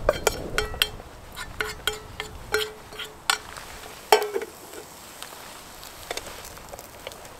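Chopped onions being stirred in a frying pan on a Trangia spirit stove: a utensil clicks and scrapes against the pan, each stroke with a short metallic ring, and a louder knock comes about four seconds in. For the last few seconds the onions sizzle softly in the oil.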